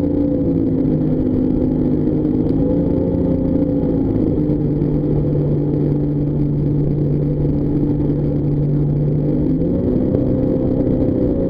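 Jetboat engine running at low speed, throttle eased back: its pitch drops about four seconds in and rises again about ten seconds in as the throttle is opened.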